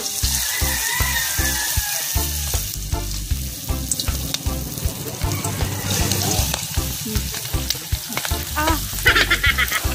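Battered chicken pieces deep-frying in hot oil in a wide aluminium wok, the oil sizzling and crackling. It starts suddenly as the first piece goes into the oil.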